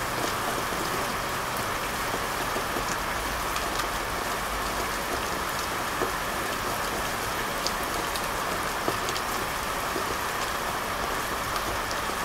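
Steady rain falling, an even hiss with scattered sharp drop ticks.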